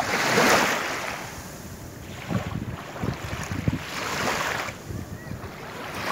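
Small waves washing in over sandy shallows, the noise swelling and fading in surges a few seconds apart, with wind buffeting the microphone.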